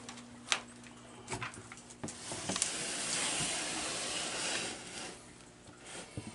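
Plastic tub being pulled out of a reptile rack, with a few sharp knocks, followed by about two seconds of steady hiss that fades out near the end.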